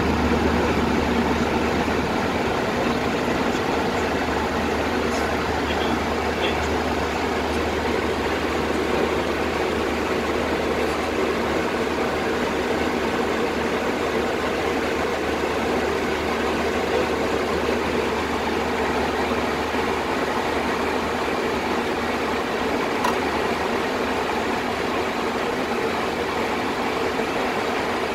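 Steady, even hum with a hiss over it: the constant background running noise of a Boeing 737 flight deck.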